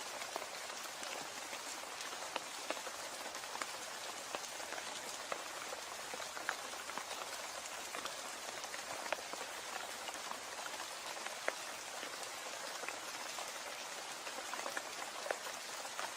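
Steady rain falling, with scattered individual drops ticking sharply on a nearby surface. No thunder is heard.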